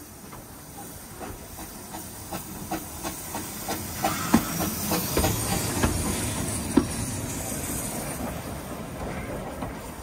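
Narrow-gauge steam tank locomotive, Lynton & Barnstaple Railway No. E762 Lyn, passing close by on the adjacent track: a steam hiss with a run of sharp clicks and clanks from the running gear and rails. It grows louder to a peak about halfway through, then fades as it goes past.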